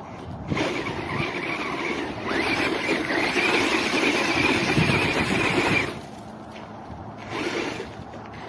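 Brushless RC truck's motor and drivetrain whining as it runs, for about five seconds, rising in pitch about two seconds in and then cutting off.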